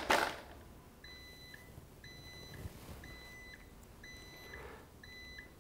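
A brief knock as the Bosch GRL 600 CHV rotary laser is bumped, then the laser's anti-drift (ADS) alarm beeping: five faint, high beeps about once a second, signalling that the tool has been disturbed and has stopped operating.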